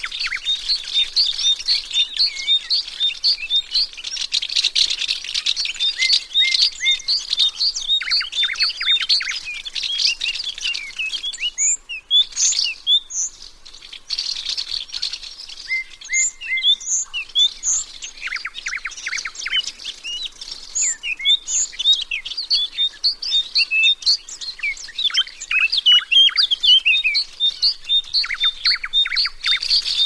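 A chorus of small songbirds chirping and singing, many short high chirps overlapping, with quick trills every few seconds.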